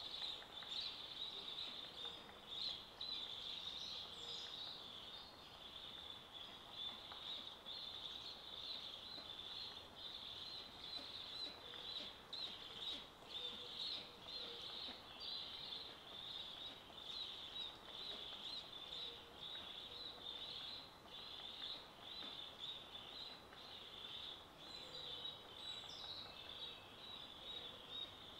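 Faint woodland background of continuous, rapid high-pitched bird chirping.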